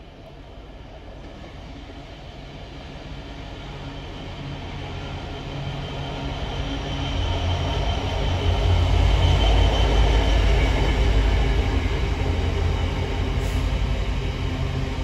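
Diesel locomotive hauling a long freight train of wagons past. Its engine and wheels make a low rumble that grows louder as it approaches and is loudest about nine seconds in as it goes by, then the wagons keep rolling past steadily.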